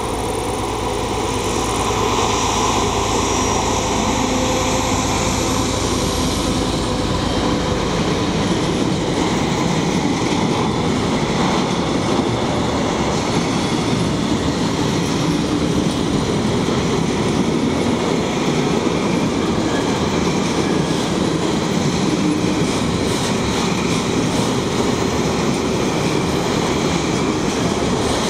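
A freight train of tank wagons starts off and rolls slowly past, its wheels clattering and grinding on the rails without a break.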